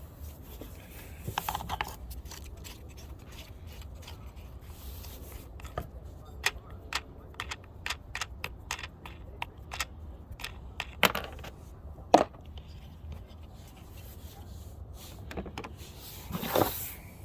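Scattered small clicks, taps and scrapes of hands working the plastic and metal parts of an old truck fog light and its mounting bracket, with a longer scrape near the end, over a steady low hum.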